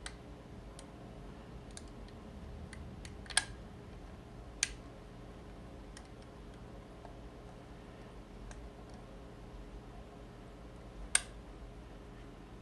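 Small metallic clicks of a wire pick working the levers inside a vintage US Mail 4-lever padlock held under tension. The clicks are sparse, with fainter ticks between three louder ones: two about a second apart in the first third, and one near the end.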